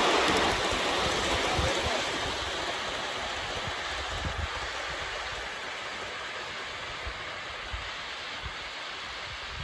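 Large-scale garden model train rolling along its track, a steady rumble of wheels on rail that fades as the train moves away, with a few faint clicks near the end.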